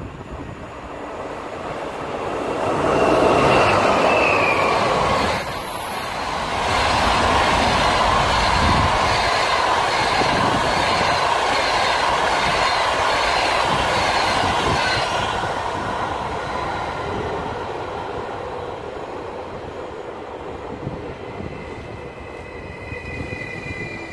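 A locomotive-hauled passenger train of Russian Railways coaches passing at speed. It builds quickly as the locomotive comes by, then the coaches rush past with an even wheel clatter, and the sound slowly fades as the train draws away.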